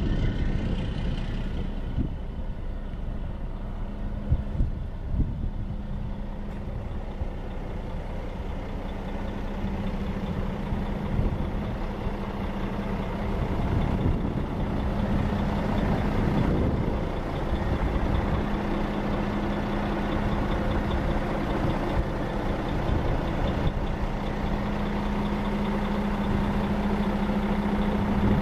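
Diesel engine of a Sterling LT9500 dump truck running steadily with a constant low hum while its hydraulic hoist raises the dump body. A few sharp clicks come about four to five seconds in.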